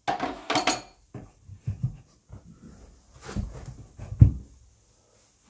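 A few soft knocks and bumps of someone moving close to the microphone, with two louder, deeper thumps about three and four seconds in.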